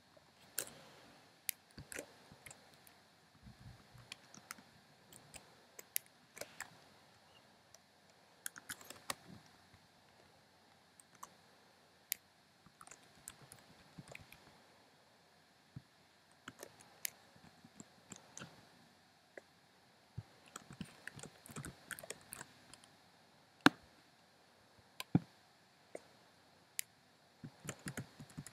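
Computer keyboard keys tapped one by one at an uneven pace, with pauses between, then a quicker run of keystrokes near the end.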